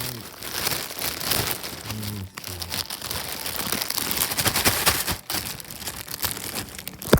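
Plastic bag crinkling and rustling steadily as a plush toy is pulled out of it.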